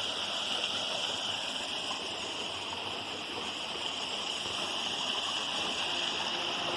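Waterfall and stream water rushing, a steady even hiss that holds unchanged throughout.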